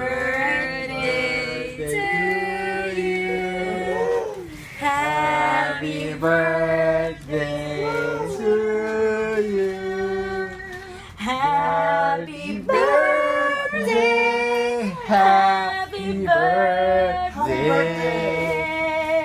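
A small group of people singing a birthday song unaccompanied, with long held notes.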